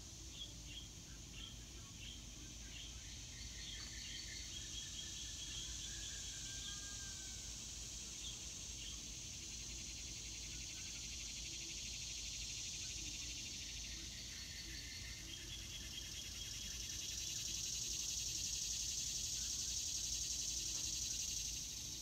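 Outdoor summer insect chorus, a steady high-pitched buzz that grows louder about two-thirds of the way through and drops back near the end. Bird calls come and go over it in short series of quick repeated chirps.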